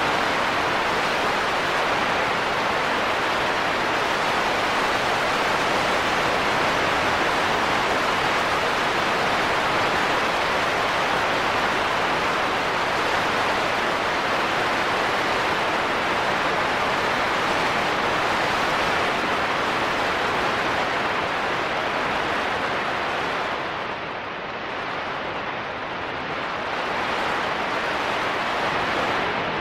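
Radio emission from an M8.4 solar flare, picked up by a radio telescope receiver and played as audio: a steady rushing hiss like static, which falls off for a couple of seconds near the end.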